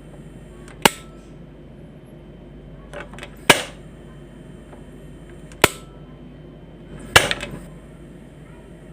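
Quantum gas stove knob turned four times, each with a sharp click about two seconds apart, lighting and shutting off the burner in turn. A faint hiss of the burning gas stops after the first and third clicks and returns after the second and fourth.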